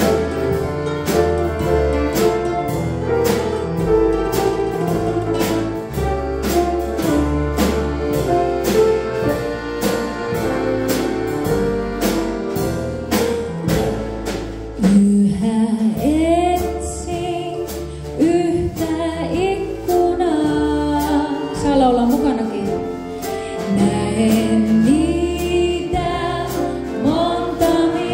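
A small live band plays a tune over a steady drum beat. About halfway through, a woman starts singing with vibrato.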